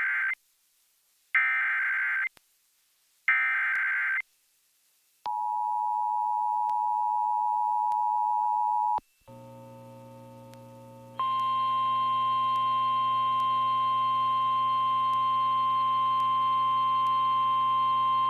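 Emergency Alert System tones: the last of three warbling SAME digital header bursts, each about a second long, then the two-tone attention signal held for about four seconds. After a brief quieter buzz, a steady single-pitch NOAA Weather Radio warning alarm tone starts about 11 seconds in.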